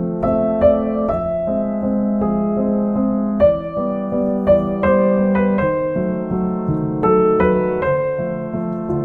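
Background piano music, single notes and chords struck in an even, unhurried rhythm.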